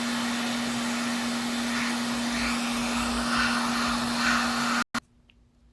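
Hot air rework equipment blowing steadily, a hiss with a steady hum under it, heating the board from underneath to solder the HDMI port. It cuts off abruptly near the end, leaving near silence.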